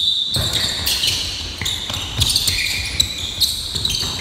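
Basketball game on an indoor court: sneakers squeaking on the floor in short overlapping squeals, over the thuds of the ball bouncing and players' footsteps.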